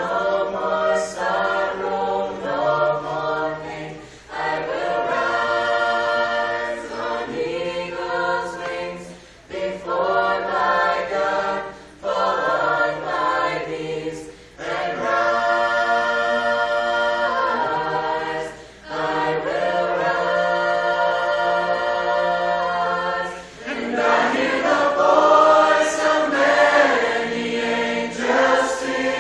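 Youth choir singing a cappella in harmony: held chords in phrases with short breaks between, growing louder in the last few seconds.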